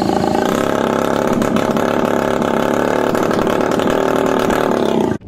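Straight-piped two-stroke engine of a Honda Dio scooter, spun into life with a cordless drill on the flywheel nut, running loud and steady with the rear wheel turning free off the ground. The sound cuts off suddenly near the end.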